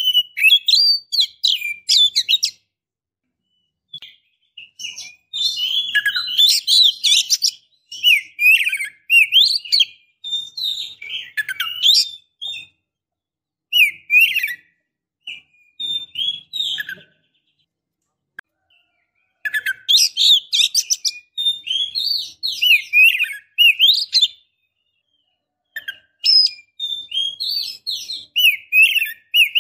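Female oriental magpie-robin calling: rapid high chirps and short whistles in phrases of a few seconds each, with pauses of one to two seconds between them. It is offered as the call of a female in breeding condition, used as a lure to make males answer.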